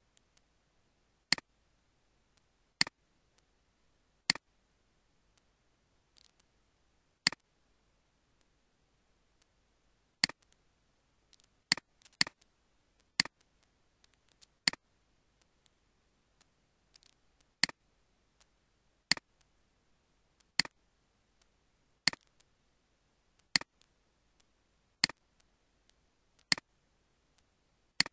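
Computer mouse button clicks, single sharp clicks every second or two with a few quick doubles.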